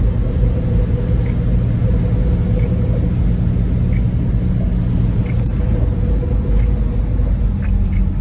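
Steady low rumble of a Delica van's engine and tyres, heard from inside the cab while it drives along a flooded, rain-wet road. There is a faint steady whine and a few light ticks.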